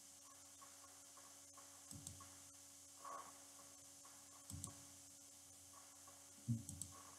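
Near silence with faint computer mouse clicks, three of them a couple of seconds apart, over a steady low room hum.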